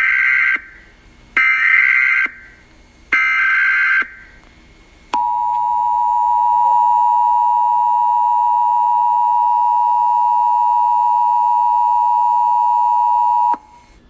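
Emergency Alert System broadcast tones: three one-second bursts of SAME digital header data about a second and a half apart, then the steady EAS two-tone attention signal held for about eight and a half seconds before cutting off sharply.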